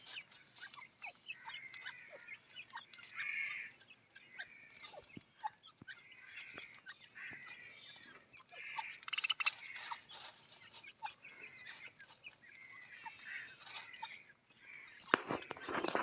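Mixed flock of budgerigars and francolins (teetar) feeding on the ground, making a continual stream of short chirps and soft clucking calls, with a louder flurry of calls near the end.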